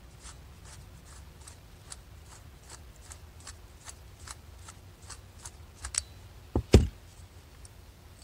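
Flathead screwdriver backing the air screw out of a Mikuni two-stroke carburetor body: faint, even clicks about three a second. About two thirds of the way in come a few louder dull thumps as the carburetor is handled.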